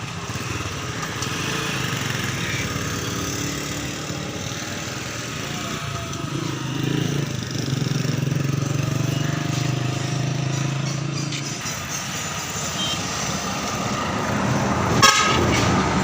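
Vehicle engine running amid street traffic noise, a low hum swelling through the middle, with a single sharp knock near the end.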